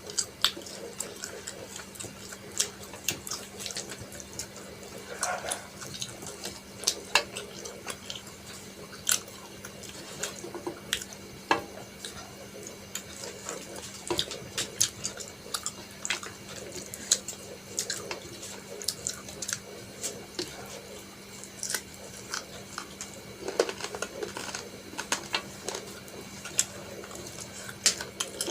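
Close-miked eating sounds: wet chewing and lip smacks of a mouthful of rice and oily mutton curry, many short, sharp wet clicks at an irregular pace. A steady low hum runs underneath.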